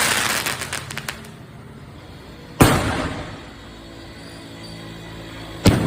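A 2-inch multi-shot fireworks cake firing its shells one at a time. At the start comes a crackling, hissing spell that fades out. Then there are two sharp launch bangs, one about two and a half seconds in and one near the end, each trailing off in a short echo.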